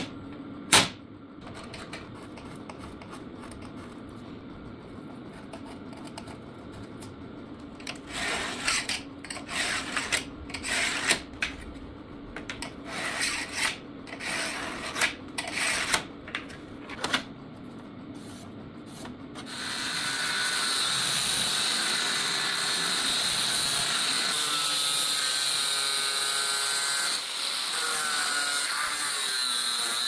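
Irregular knocks and scrapes of tools and metal on a steel sheet. Then, about two-thirds of the way through, an angle grinder with a cut-off disc starts cutting into sheet steel and runs steadily, its pitch wavering under load.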